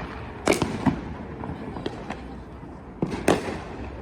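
Fireworks going off: sharp bangs in two pairs, one about half a second in and the other around three seconds in, over a continuous background of more distant bursts.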